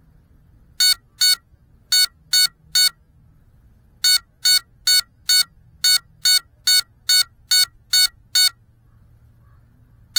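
Loud, short electronic beeps from a crashed FPV quadcopter: two, then three, then a steady run of about ten at roughly two a second, then more starting at the end. This is the downed quad's beeper sounding while it lies still against the rock.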